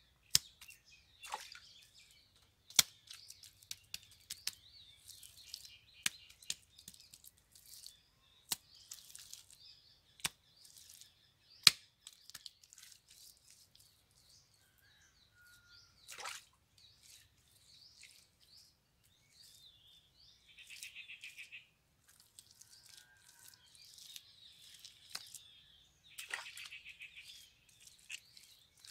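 Wet mud being smoothed and patted by hand on the inner wall of a mud oven: irregular sharp wet clicks and short scratchy squelches.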